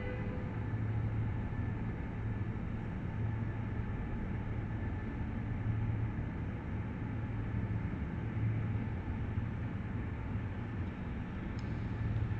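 Mobile crane's engine running as it drives, a steady low drone with road noise.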